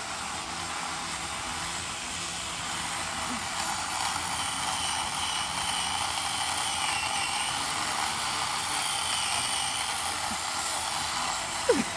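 Corded electric chainsaw running continuously as it cuts into a tree trunk. Its high motor whine wavers in pitch as the chain bites and frees in the wood.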